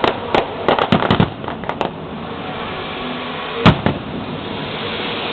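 Fireworks display: a rapid cluster of sharp bangs from bursting shells in the first second and a half, then a single loud bang near the middle, over a steady crackling hiss.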